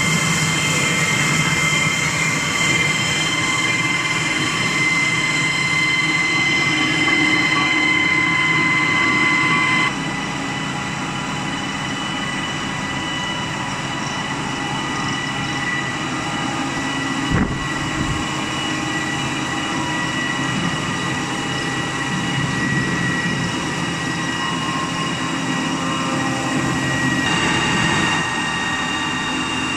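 TL1200 food paper wax coating machine running steadily, with a low mechanical rumble under several steady high whining tones from its rollers and drives. The sound gets somewhat quieter about ten seconds in, and a brief thump comes a little past halfway.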